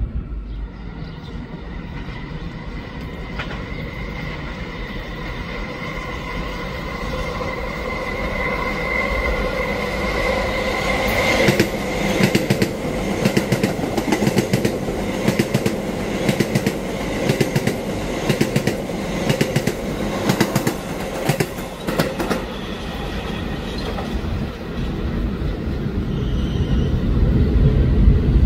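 New York subway R211T open-gangway train approaching at speed with a steady whine, growing louder, then passing close by with rhythmic wheel clatter over the rail joints, about two clacks a second, for some ten seconds. Near the end a low rumble builds as another train approaches.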